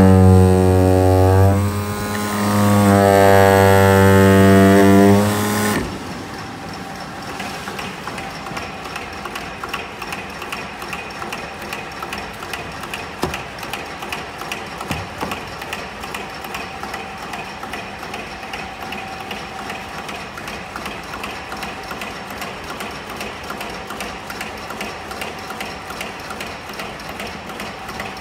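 CNC knife cutting machine working on 40 mm hard EVA foam: a loud hum with a wavering whine that stops suddenly about six seconds in, then a steady, fast mechanical clicking.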